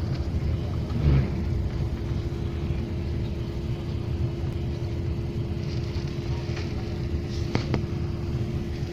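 An engine running steadily: a low rumble under a constant hum, with a couple of faint clicks near the end.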